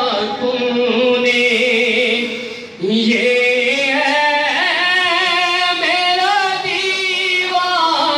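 A solo male voice chanting an Islamic devotional text unaccompanied, holding long notes with wavering, ornamented pitch. He pauses briefly for breath about two and a half seconds in, then starts a new phrase.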